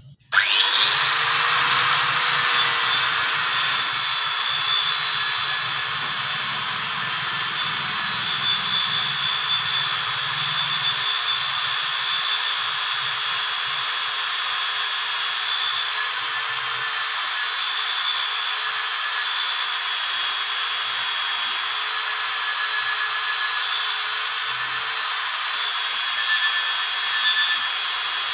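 Electric angle grinder with a sandpaper flap disc starts up, its pitch rising briefly as it spins up, then runs steadily with a constant high hiss while sanding the face of a worn, scored brake disc rotor to smooth it for even braking.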